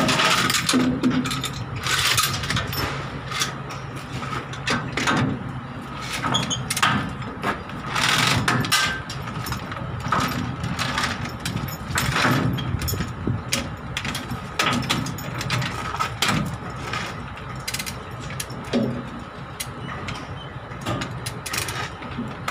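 Lever chain hoist being ratcheted to tension a tie-down chain: repeated sharp clicks of the ratchet and rattling of the chain with each stroke of the lever, over a steady engine hum.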